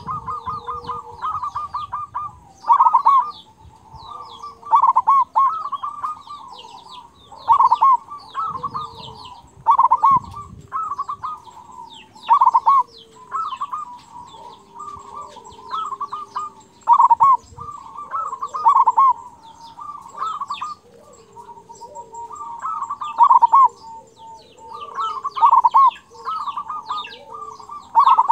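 Zebra dove (local perkutut) cooing its rippling song phrase over and over, a loud phrase every two to three seconds, with softer cooing between. Faint high chirps sound in the background throughout.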